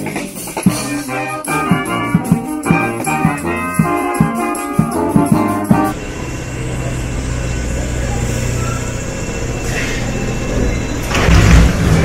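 A street band playing rhythmic music with drum beats, which cuts off about six seconds in. A Paris Metro train then runs along the platform with a steady rumble that grows louder near the end.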